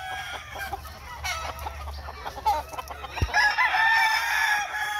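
Gamecock rooster crowing: one long crow starting about three seconds in, after scattered short clucks and calls from caged fowl.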